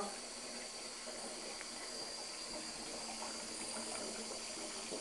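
Faint steady hiss with a low hum: quiet bathroom room tone.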